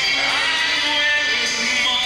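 Music with a singing voice, playing steadily.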